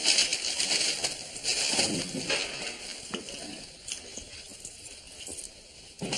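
Rustling and light metallic clinking, loudest in the first two and a half seconds, as a front door is opened and people step through it.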